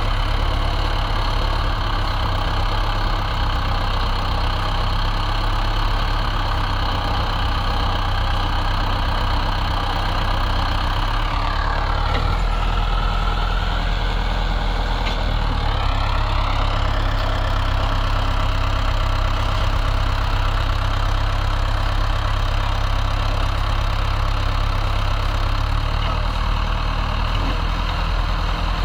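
Swaraj XM tractor's diesel engine running steadily with a fully loaded sand trolley hitched, its rear wheels dug into loose sand. Its note dips and rises briefly around the middle.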